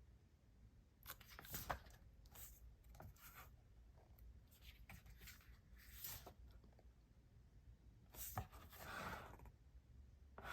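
Faint, intermittent rustling of glossy album pages being handled and turned, in several short soft bouts.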